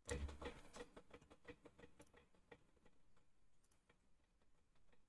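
Near silence with faint scattered clicks, about two a second, after a brief crackly rustle at the start.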